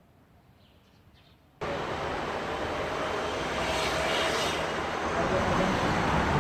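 Near silence, then about a second and a half in, a steady outdoor city ambience cuts in abruptly: an even hum of street and traffic noise.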